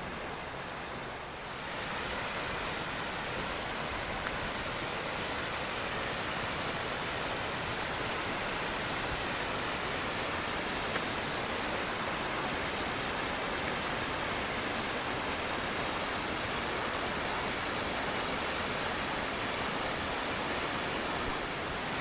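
The Todtnau waterfalls, a tall cascade on a Black Forest hillside, heard as a steady, even rush of falling water. It grows a little louder about a second and a half in, then holds.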